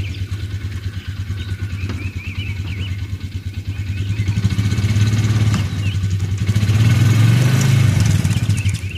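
Side-by-side utility vehicle's engine running, then revving up and working hard about halfway through as it strains to pull out a chicken coop, before easing off near the end. A few bird chirps are heard in the first couple of seconds.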